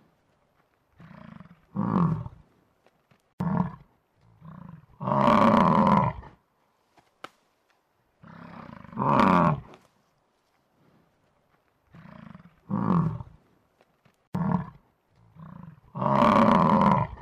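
A large animal's loud calls, coming in repeated groups: two or three short lower calls, then one long loud call of about a second and a half. The group comes three times, about every five seconds.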